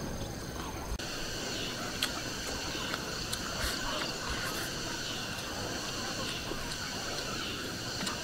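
Steady chorus of insects with several high, continuous tones, changing abruptly about a second in, over a person eating with chopsticks from a rice bowl: a few small clicks and chewing.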